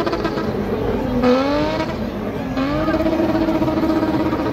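BMW M20 straight-six engine revving hard. The revs rise, fall back about a second in, then climb again and are held high and steady through the second half.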